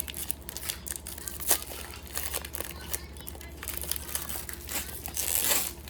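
Plastic foil wrapper of a trading-card pack being crinkled and torn open, in short crackling bursts with a longer rustle near the end.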